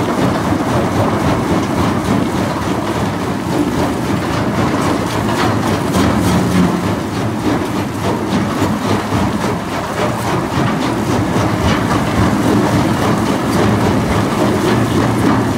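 Komatsu BR380JG-1 mobile crusher running under load, with its turbo diesel engine and machinery making a steady loud noise. Rock rattles and knocks continuously as it passes through the vibrating grizzly feeder and the crusher.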